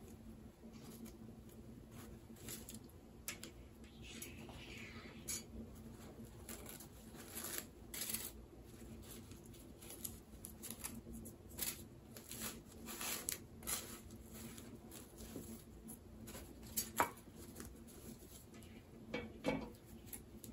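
Packaging being handled by hand: scattered light clicks, taps and rustles of packing material, with a longer rustle about four seconds in, over a faint steady hum.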